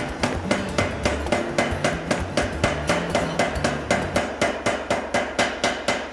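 Mechanical power hammer striking a glowing piece of hot metal between its dies in a fast, even rhythm of about five blows a second, with a steady low hum underneath.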